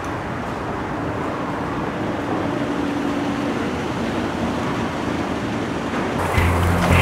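A car running: steady engine and road rumble that slowly grows louder, with a low engine hum coming in near the end.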